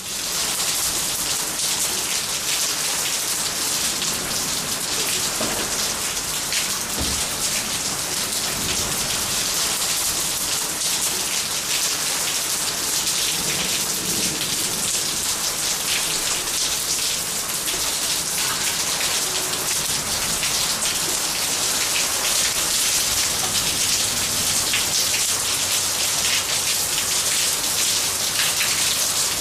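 Steady rain falling on a paved yard, grass and plants: a dense, even patter of drops.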